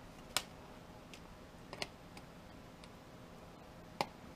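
A few sharp, separate clicks as needle-nose pliers grip and twist small push-button switches off a VCR circuit board.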